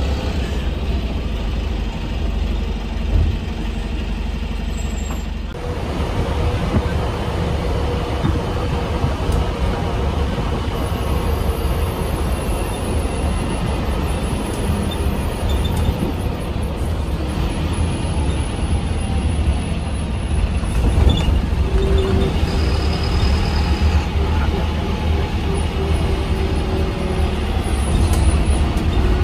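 MSRTC BS6 bus underway: a steady low engine drone and road rumble.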